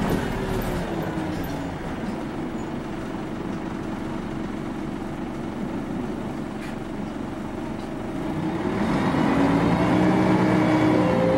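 Nissan Diesel Space Runner city bus's diesel engine running: its note falls away at first, holds low and steady, then from about eight seconds in rises and gets louder as the bus accelerates.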